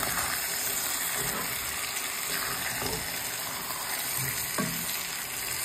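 Chicken pieces sizzling steadily in hot oil in a pot with fried onion and pepper as they brown, stirred now and then with a wooden spoon.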